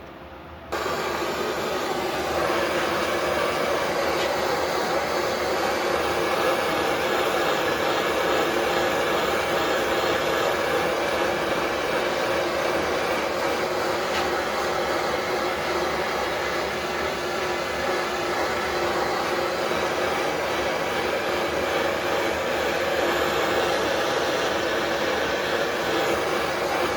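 Wood lathe running steadily while a tool works the spinning southern yellow pine blank, smoothing its surface; the sound starts abruptly under a second in.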